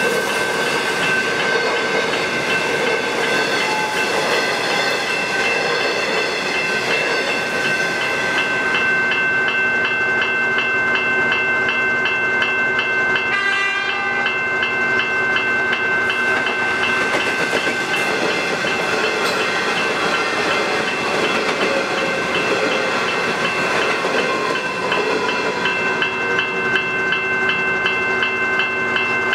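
Level crossing's General Signals Type 1 electronic bells ringing steadily with a fast repeating ding. A Metro electric suburban train runs past on the rails for the first several seconds, then fades, leaving the bells.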